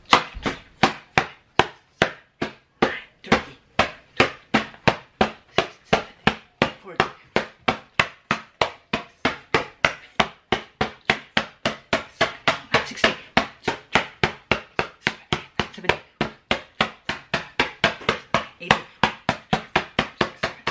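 An open hand slapping a torn paper painting held up in the air, in a fast, even run of sharp smacks at about three to four a second.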